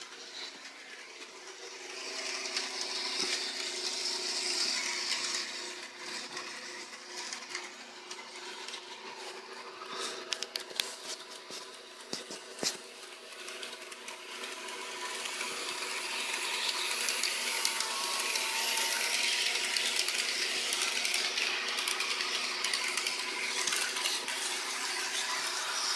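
Model train running on its track: small electric motor whirring and wheels clicking over the rails. It grows louder about two-thirds of the way through as the train comes past, with a few sharp clicks around the middle.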